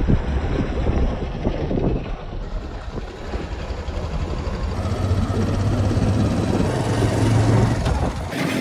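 Engine hum and road noise from a moving vehicle, with a steady low hum that grows stronger in the second half and drops away suddenly near the end.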